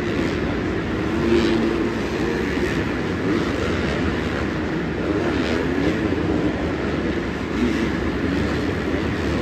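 Dirt bike engines running on a supercross track, their pitch rising and falling as they rev, over a continuous rumble.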